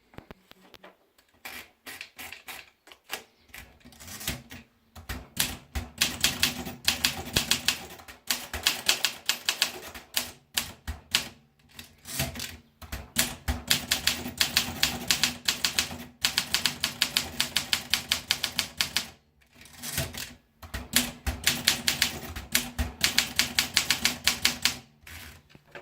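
Olympia SM4 manual portable typewriter being typed on: quick runs of sharp keystroke clacks, broken by a few short pauses.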